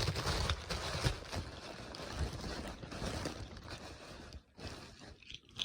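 Rustling and handling of packaging as a package is opened: irregular scraping and crinkling, fading toward the end.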